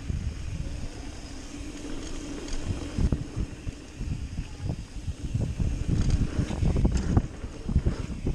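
Mountain bike rolling fast down a dirt jump trail: wind buffeting the microphone over the rumble of knobby tires on packed dirt. The bike rattles and knocks over the bumps, more sharply in the last couple of seconds.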